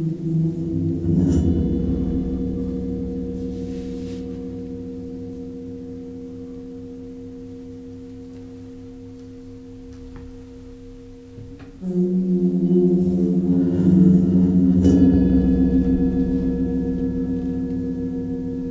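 Cristal euphonic instrument's resonator used as a sound-effects generator: a cluster of low, gong-like sustained tones rings out and slowly dies away. About twelve seconds in a second, louder cluster starts, swelling with further strokes and adding a higher tone before it begins to fade.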